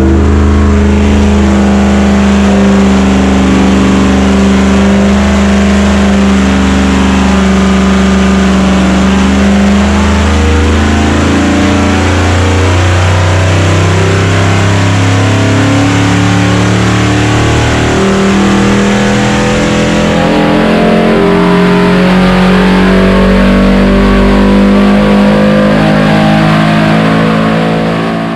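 Supercharged 6.2-litre LT5 V8 on open headers, running under full load on an engine dynamometer, with its revs climbing steadily through a dyno pull. The sound is loud and continuous and falls away at the very end.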